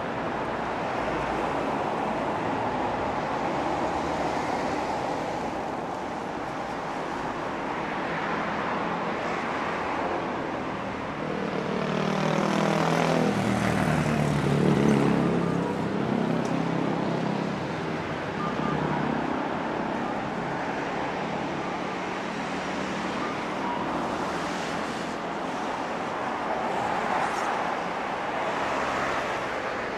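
Road traffic running along a wide city street, with one louder engine passing by near the middle, swelling and fading as it goes.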